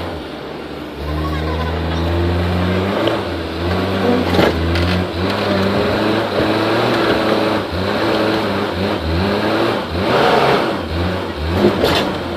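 JCB 3DX backhoe loader's diesel engine running, revving up about a second in and changing pitch as the hydraulics are worked. Several sharp knocks are heard, the loudest near the end.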